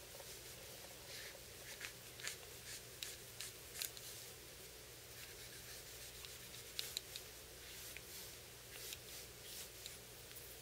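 Faint, irregular scratchy rubbing of a wet, soapy paper towel scrubbing a white ceramic sharpening rod to clean off embedded steel particles.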